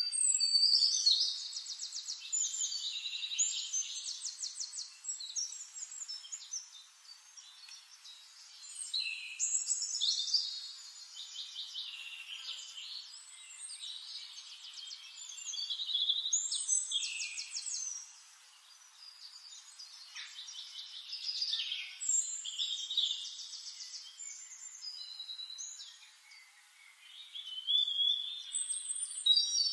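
A songbird singing: bubbling phrases of rapid trills and chatters, each a couple of seconds long, repeated about five times with short pauses between.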